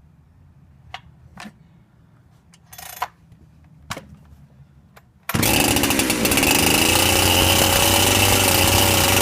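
A few light clicks and a short rasp, then about five seconds in a modified Hutzl/Farmertec 372XP-clone two-stroke chainsaw fires on a cold start and runs loudly and steadily.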